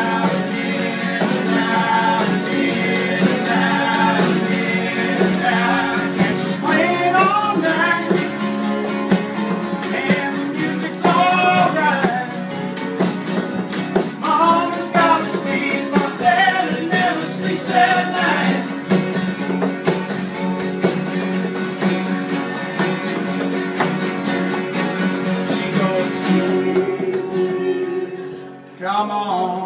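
Live band music with a voice singing over steady instrumental accompaniment, dipping briefly near the end.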